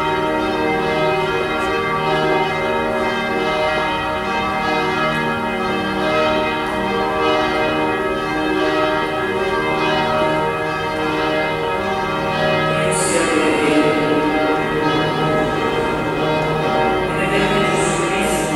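Church bells ringing continuously, several bells pealing together. Two short rushes of noise come in the second half.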